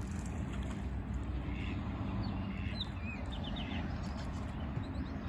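Faint high bird chirps: a few short calls and a quick run of four notes, over a steady low rumble.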